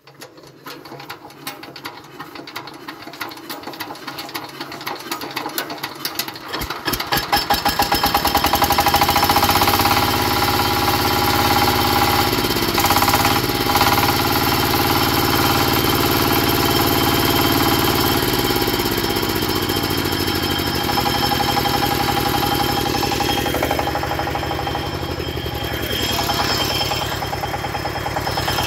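A soil-testing drill rig's engine starting up: slow separate firing thumps that speed up and grow louder over the first seven seconds or so until it catches. It then runs steadily, its revs rising a little midway and settling back.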